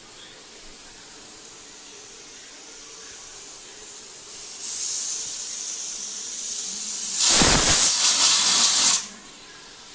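Pressure cooker whistle blowing off steam: a high hiss builds slowly, steps up about four and a half seconds in, then the whistle goes off in a loud blast for about two seconds and cuts off sharply.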